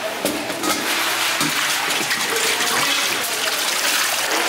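Water running steadily with a splashing hiss.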